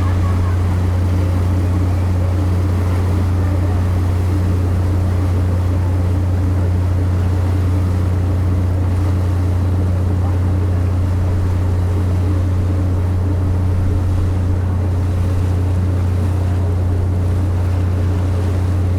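Steady low drone of the cargo-passenger ship Hahajima Maru's engines, heard on board, with the noise of wind and water over it.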